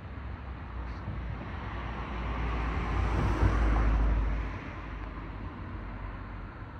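A car passing by: road noise swells over a couple of seconds, peaks near the middle with a low rumble, then falls away.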